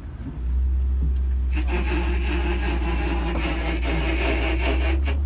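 BMW E46 rolling along with a steady low drone. About a second and a half in, a rasping, grinding scrub sets in and holds until near the end: the larger rear tire rubbing against the body.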